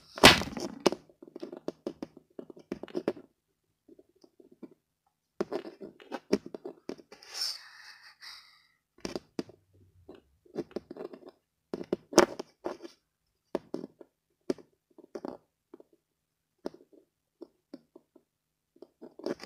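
Small toy figures being handled and set down on a hard surface: a string of light taps, knocks and scrapes, with louder knocks just after the start and about twelve seconds in, and a brief rustle about seven seconds in.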